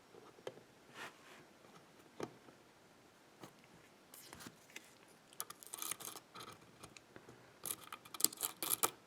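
Small metal clicks and scrapes from a GeGe euro cylinder lock being worked on to pull its plug out: a few separate taps at first, then clusters of quick scraping clicks about four to six seconds in and again near the end.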